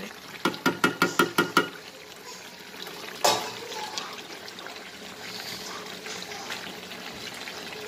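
A spatula stirring and scraping a karahi of chicken and potato curry: about eight quick strokes in a row, then one louder knock against the pan a few seconds in. After that the curry sizzles and bubbles steadily in the pan.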